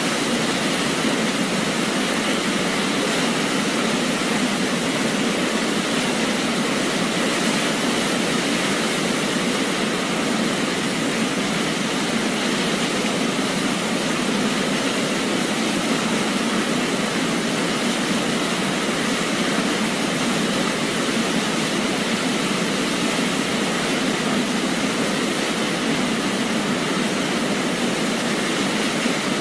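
Waterfall, a steady, unbroken rush of falling water with no lulls or distinct splashes.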